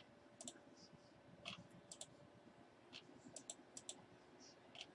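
Faint computer mouse clicks, a string of sharp irregular clicks with some in quick pairs, as a randomizer button is clicked over and over.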